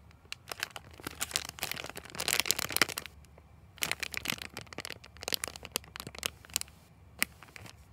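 Thin plastic packaging bag crinkling and crackling as a foam mango squishy is squeezed and handled inside it, in irregular bursts with short pauses, loudest about two to three seconds in.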